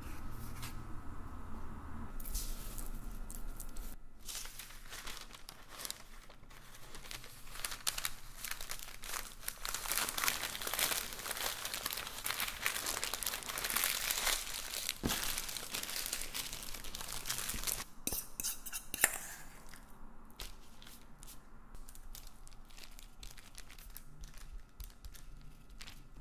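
Parchment paper crinkling and crumpling as hands press and fold it, a dense crackle that builds to its loudest in the middle and then fades to a softer rustle, with one sharp click about three quarters of the way through.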